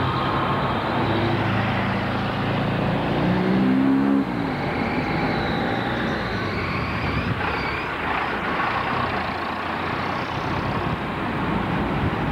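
Road traffic: a motor vehicle's engine runs and rises in pitch over the first four seconds, then drops away suddenly, leaving a steady traffic rumble.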